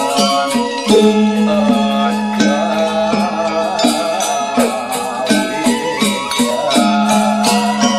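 Balinese gamelan angklung ensemble playing: bronze-keyed metallophones struck with wooden mallets in quick, even strokes, about four a second, their ringing tones overlapping.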